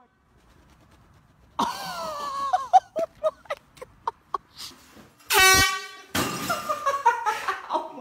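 A handheld air horn gives one short, loud blast about five seconds in. Before it, yelling and a run of short laughing bursts; after it, more yelling.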